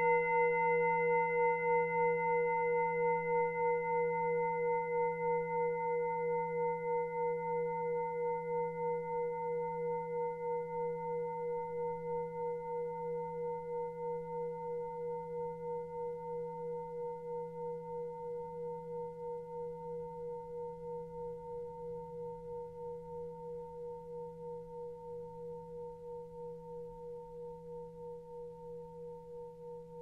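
Tibetan singing bowl ringing out after a strike, one long tone slowly fading with a steady wavering beat of about two pulses a second; its highest overtones die away within the first few seconds. The ring marks a change of hand position in a Reiki session.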